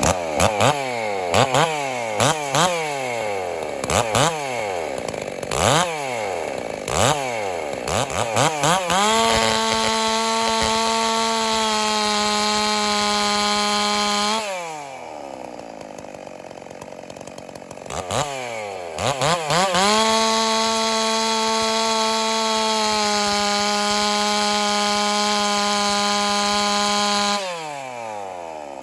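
Ported Stihl 660-clone two-stroke chainsaw revved in a string of quick blips, then held at full throttle through two cuts with its new chain on factory sharpening, the engine pitch dropping a little as the chain bites into the wood. Between the cuts it falls back to idle.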